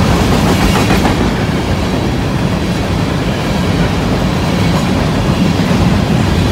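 Covered hopper cars of a BNSF grain train rolling past at speed: loud, steady noise of steel wheels running on the rails.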